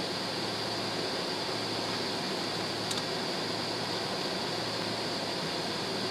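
Steady cabin noise inside a jet airliner on the ground, its engines at idle: an even hiss of rushing air over a constant low hum, with a faint tick about three seconds in.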